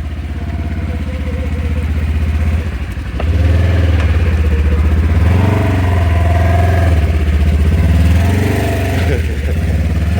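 An off-road vehicle's engine running and revving, its pitch rising and falling in several swells, louder from about three seconds in.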